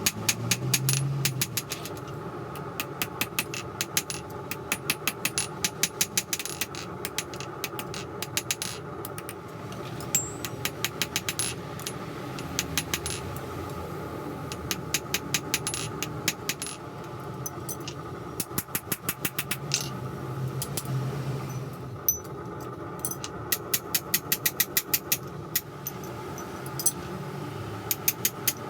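Runs of rapid, evenly spaced hammer blows on steel forging a small combination wrench into a knife blade, with short pauses between runs, over a steady drone.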